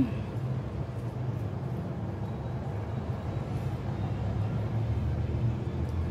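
Steady low background rumble, with a brief louder low hum right at the start.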